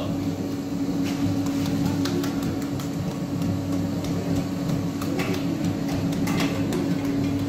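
A steady mechanical hum with one strong unchanging tone, with scattered soft pats and slaps of hands pressing bread dough on a wooden peel.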